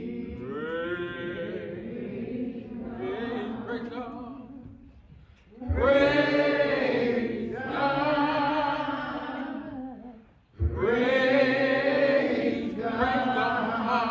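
A man's voice singing a slow song in long, held, wavering notes. The phrases come in loud about six seconds in and again just under eleven seconds in, each after a brief pause for breath.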